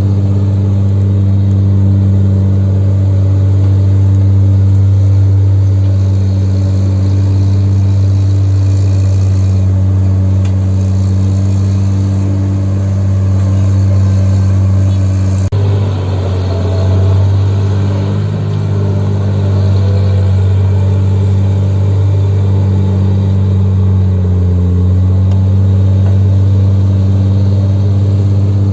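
Diesel engine of an earthmoving machine running with a steady deep drone. About halfway through the sound cuts abruptly, and for several seconds after that the engine pitch wavers and dips as it takes load, then settles back to a steady drone.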